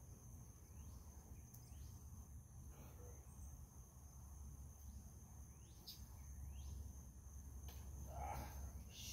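Faint outdoor ambience: a steady high insect drone with several short, falling bird chirps over a low rumble, and a brief soft noise about eight seconds in.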